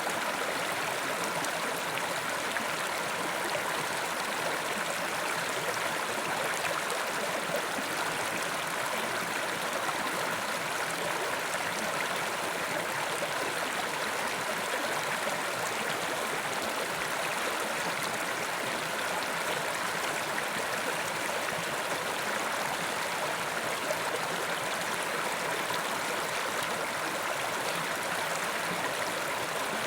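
Mountain river rushing and gurgling over rocks, a steady, unbroken water noise.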